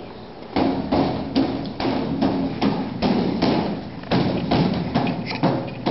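A series of hollow thumps and knocks on a plastic baby walker toy, roughly two to three a second and unevenly spaced, as a toddler bangs on it.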